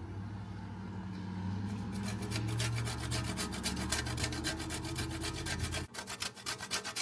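Calamansi skin being grated on a handheld grater for zest: rapid rasping strokes, several a second, that start about two seconds in. Under them is a low steady hum that stops abruptly near the end.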